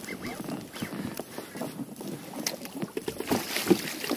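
Irregular splashing and knocks of water against an inflatable boat as a hooked fish is brought to the surface and thrashes into a landing net, getting louder near the end.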